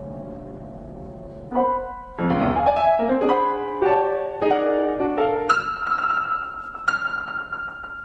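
Solo piano: a held chord fading away, then a new chord and a quick run of notes, ending on a high note struck twice that rings on and slowly fades.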